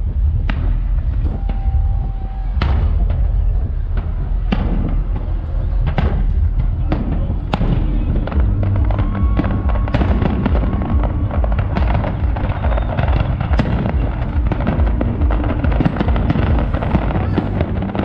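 Fireworks display: aerial shells bursting in a string of sharp bangs over a low rumble, turning into denser, overlapping crackling and booming from about halfway through.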